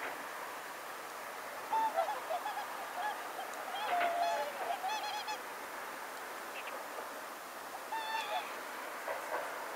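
A family of whooper swans giving honking calls in uneven runs: a burst of several calls in the first half, then a few more near the end.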